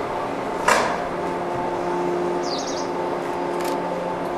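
Steady electrical hum of a stationary 115-series electric train, with one sharp clank a little under a second in and small birds chirping briefly past the middle.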